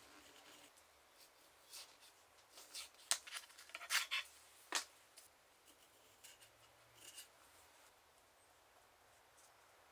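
A small bookbinder's knife scraping and tapping against a smooth board: a run of short, sharp scrapes from about two seconds in to about five seconds in, then a few faint ones near seven seconds.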